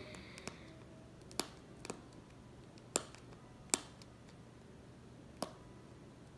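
Plastic wrapping on an LOL Surprise doll ball crackling as fingers pick and peel at it: about six separate sharp clicks spread over several seconds, with quiet between them.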